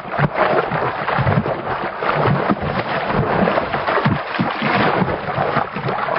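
Churning, splashing water, a steady rush with irregular low thumps and surges.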